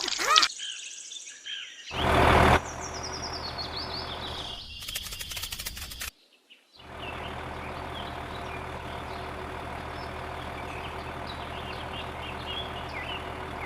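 A steady mechanical hum, like a motor or engine running, with birds chirping over it. A loud burst of noise comes about two seconds in, and the sound drops out briefly around six seconds before the hum and chirps return.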